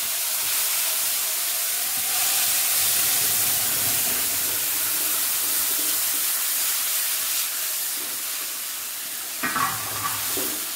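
Wet raw-mango pulp sizzling in hot tempering oil with mustard and cumin seeds, stirred with a silicone spatula. A steady hiss that eases a little toward the end.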